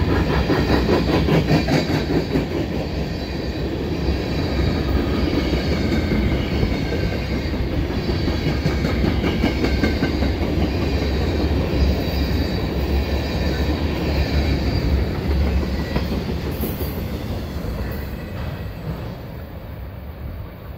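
Freight train's open-top hopper cars rolling past close by: a steady rumble of steel wheels on rail, with clacking over the rail joints in the first few seconds. The sound drops away near the end.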